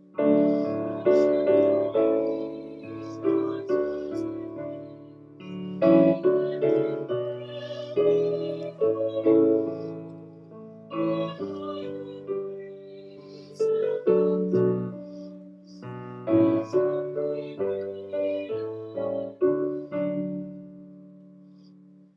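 Piano playing a hymn in slow chords, the final chord fading out near the end.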